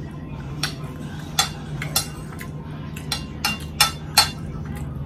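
Metal fork clinking and scraping against a ceramic plate, about a dozen short sharp clinks at irregular intervals, over a steady low hum.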